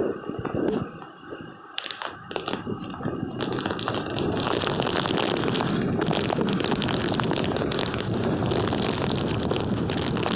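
Hurricane wind buffeting the microphone: crackling, uneven gusts at first, then a steady loud rush from about three and a half seconds in.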